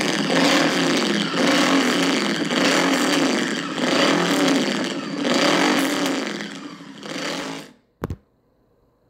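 Honda VTR 1000 F's 90° V-twin engine revving through a high-mounted GPR aftermarket exhaust, blipped up and down repeatedly, then dying away near the end. A single sharp click follows.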